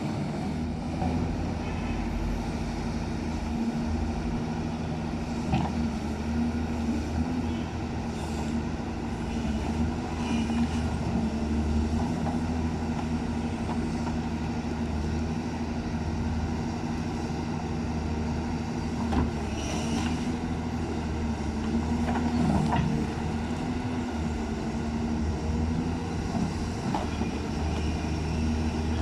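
Backhoe's diesel engine running steadily under load, with scattered knocks and cracks as the machine breaks up large tree roots.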